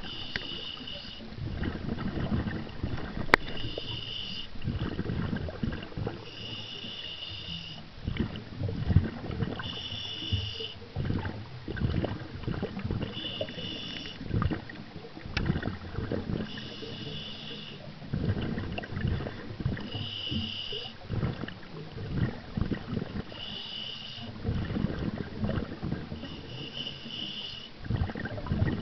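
Scuba diver breathing through a regulator underwater: a short hiss on each inhale, about every three seconds, alternating with rumbling bursts of exhaled bubbles. One sharp click about three seconds in.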